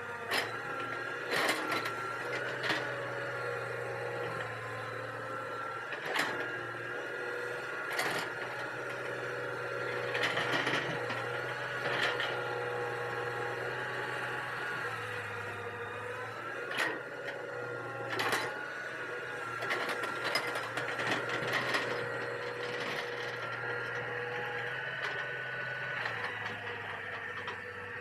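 Hitachi EX200 hydraulic excavator running steadily while working, its engine and hydraulic whine shifting in pitch now and then, with sharp clanks every second or two.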